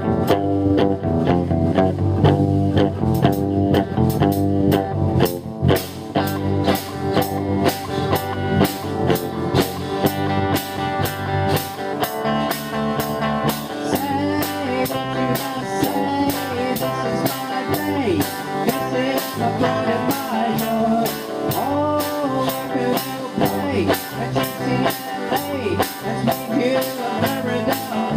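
Live light rock band playing an original song: electric guitar, bass and drum kit keeping a steady beat, with a lead vocal joining partway through.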